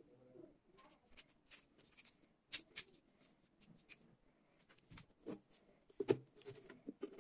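A run of small clicks, taps and scrapes as a metal skewer, a potato and a wooden crank piece are handled. About six seconds in comes a louder, duller knock as a tin can is tipped onto its side on a wooden tabletop.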